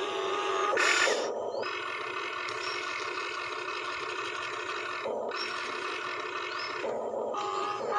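Small electric motors and gearing of a toy RC excavator whining steadily as it works, the pitch shifting a few times as different movements start and stop, with a louder rattling burst about a second in.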